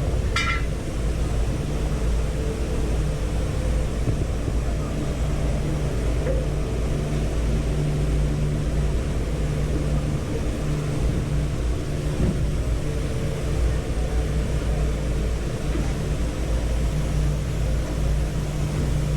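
A motor running steadily with a low hum, and a brief high squeak about half a second in.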